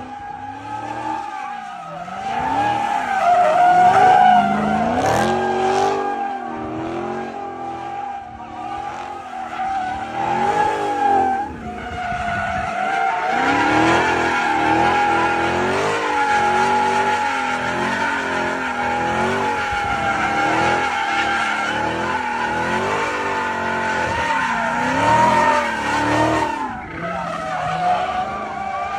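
Dodge Charger SRT Hellcat's supercharged 6.2-litre V8 revving up and down while the tyres squeal in a long, steady howl through donuts, with brief breaks in the squeal about 12 and 27 seconds in.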